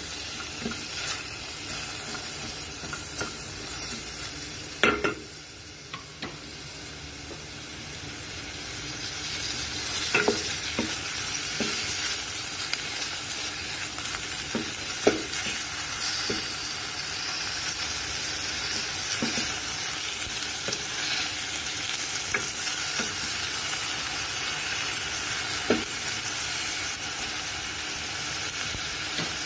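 Ground meat and sliced onions sizzling in a stainless steel pot as a spatula stirs and scrapes them, with a few knocks of the spatula against the pot. The sizzle grows louder about a third of the way in.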